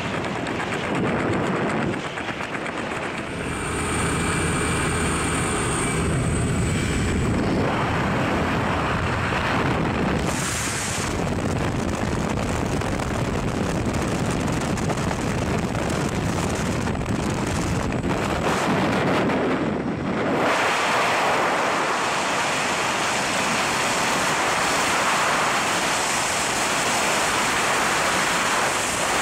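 Wind and a jump plane's engine and propeller at an open door, with steady engine tones early on. About twenty seconds in it gives way to an even rush of freefall wind on a helmet camera's microphone.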